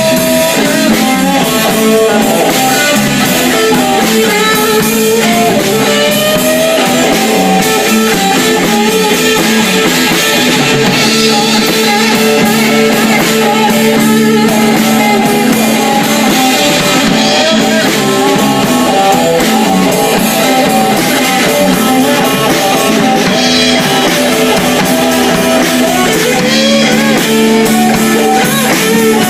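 Live blues band playing: electric guitar lead over bass and drum kit.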